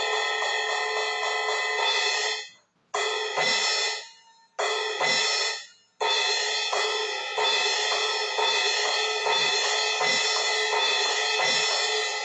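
Electronic drum kit cymbal sound from a Roland CY-12 crash pad struck repeatedly, its shimmering wash cut off abruptly twice in the first half and then played continuously, with soft low drum thumps under it.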